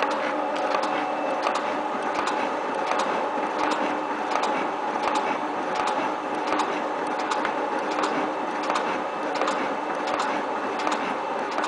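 7305T metal shaping machine running, its ram going back and forth with a sharp click about every 0.7 s over a steady mechanical hum.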